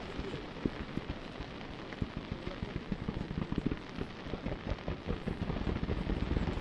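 Distant fireworks crackling: a dense run of many small pops close together, getting louder near the end.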